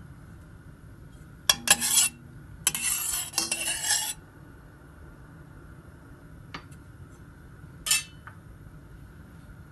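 A metal utensil scraping and clinking against a stainless steel pan: a short burst about a second and a half in, a longer stretch of scraping from about three to four seconds, then a single clink near the end.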